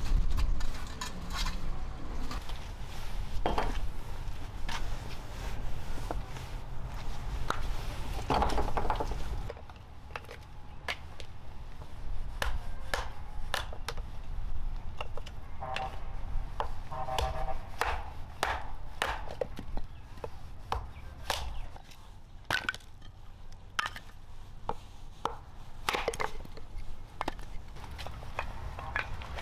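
A broom sweeping a concrete floor with a steady scratchy sound for about nine seconds. Then a large knife chopping small pieces of wood into kindling on a tree stump: sharp separate chops at irregular intervals, with the clatter of split sticks.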